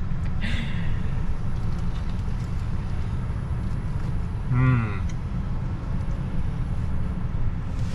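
A man chewing a mouthful of bagel breakfast sandwich with his mouth closed, giving a short "mmm" hum about halfway through, over a steady low rumble inside a truck cab.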